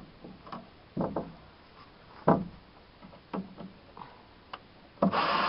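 Several light, separate knocks and taps against wood, then a cordless drill starts running near the end with a steady whir.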